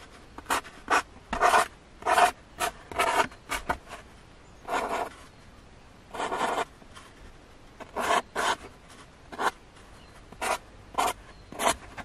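Felt-tip marker writing on cardboard: about fifteen separate pen strokes, most quick and a few up to about a second long, with short pauses between them.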